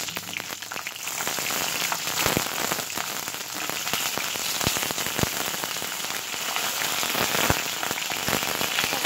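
Hot oil with mustard seeds and curry leaves sizzling and crackling in a steel kadai as whole tomatoes are set into it, with a few sharper pops standing out.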